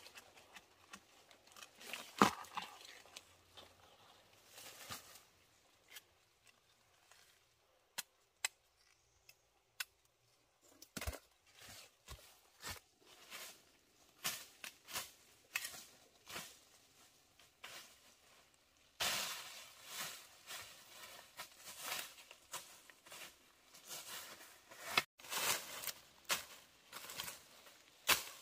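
Scattered snaps, tears and sharp clicks of hands working something, turning into denser rustling and crackling for the last ten seconds.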